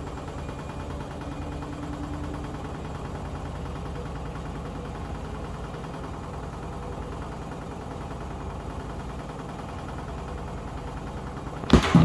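Hotpoint WMD960 front-loading washing machine running a Cottons 50 wash cycle, a steady low hum of the motor and drum. Two sharp knocks come just before the end.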